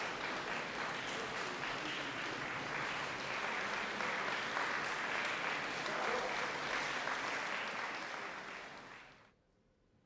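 Concert audience applauding, a steady spread of clapping that dies away about nine seconds in.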